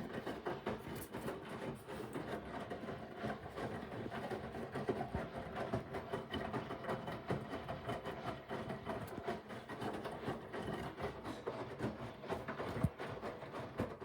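Haier washing machine running on its Express 15 cycle: a steady mechanical rumble with many small, irregular knocks.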